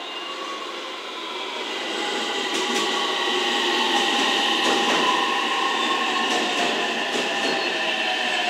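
JR West 227 series electric train pulling out of the station and accelerating away. Several whining motor tones shift in pitch over the rumble of the wheels, and the sound grows louder about two seconds in, with a few faint clicks.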